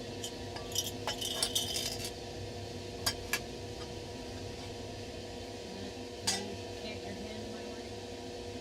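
Light clinks and clicks of small hard objects being handled: a quick flurry in the first two seconds, two sharp clicks about three seconds in and one more a little after six seconds. A steady hum of room equipment runs underneath.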